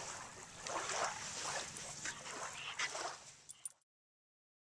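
Yellow Labrador whimpering in short whines over a background hiss; the sound cuts off abruptly near the end.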